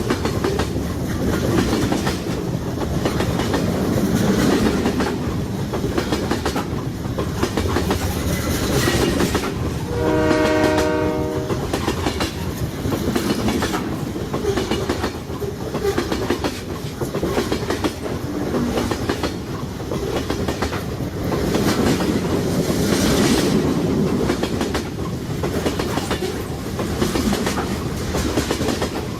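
Fast freight train rolling past, its wagons clattering steadily over the rail joints in rapid clicks. About ten seconds in comes one short train horn blast of under two seconds.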